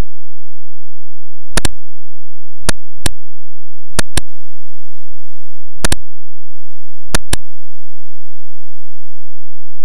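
Computer mouse button clicking: five pairs of sharp clicks, each pair a quick press and release.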